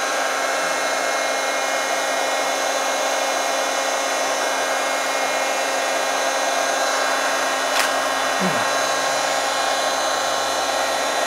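Handheld heat gun running steadily: an even blowing hiss with a steady motor whine. A single sharp click comes about eight seconds in.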